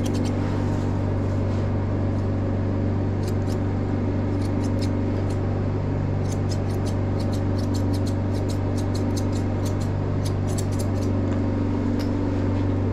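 Grooming shears snipping through a dog's hair in quick runs of crisp clicks, over a steady low machine hum.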